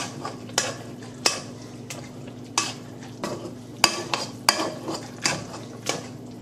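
Utensil stirring and mashing boiling gravy in a stainless steel saucepan, knocking against the pan roughly every two-thirds of a second over the faint bubbling of the boil.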